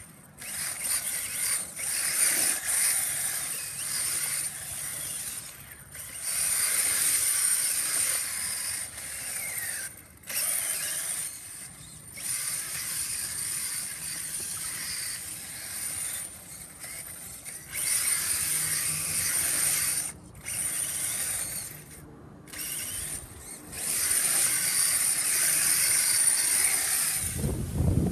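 RC car's drivetrain whirring and its tyres scrubbing as it spins donuts, in repeated bursts of a few seconds with short breaks between throttle blips. A high whine runs through the bursts, and a loud low rumble sets in near the end.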